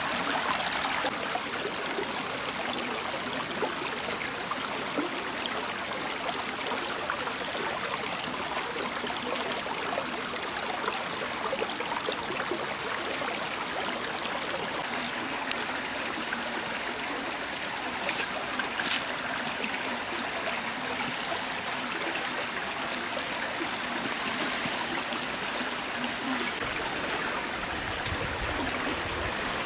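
A stream flowing steadily, with one sharp click about two-thirds of the way through and a low rumble joining near the end.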